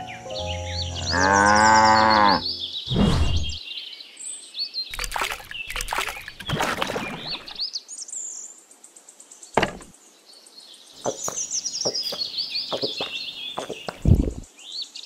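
A cow moos once near the start, one long call of about two seconds, over birds chirping. Several knocks and thuds follow, with the loudest near the end.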